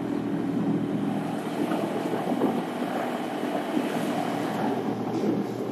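A sailing yacht's inboard engine running steadily under way, a constant low hum, with wind noise on the microphone.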